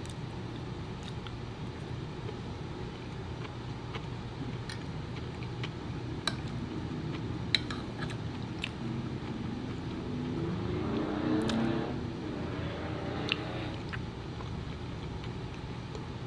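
Someone eating with a fork: quiet chewing and scattered sharp clicks of the fork against the plate, over a steady low room hum. A brief wavering hum rises and fades about ten to twelve seconds in.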